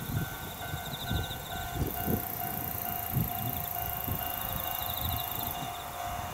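Railway level-crossing alarm ringing, a steady electronic ding repeating a few times a second, over wind gusting on the microphone.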